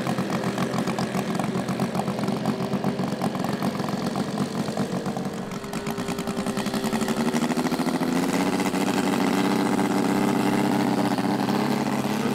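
Saito FG-90R3 three-cylinder four-stroke radial gas engine on a giant-scale RC warbird, running at low throttle with a fast, even pulsing beat. About halfway through the throttle opens: the pitch rises and the engine holds a louder, steady higher-power run.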